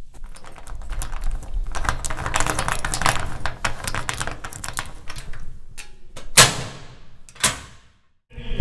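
Rapid, uneven clicking of keys being typed on a keyboard, followed near the end by two louder, sharper strikes that ring briefly.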